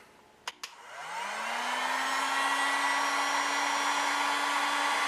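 Two quick clicks, then an electric heat gun starts up: its fan motor rises in pitch for about a second, then runs steadily with a rush of blowing air as it heats heat-shrink tubing over a soldered wire splice.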